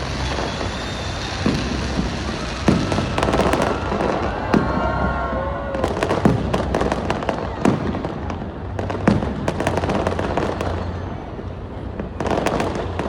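Aerial fireworks bursting in a display: repeated booms, with clusters of crackling stars about three, six and twelve seconds in, and a few whistling tones near the middle. A crowd murmurs underneath.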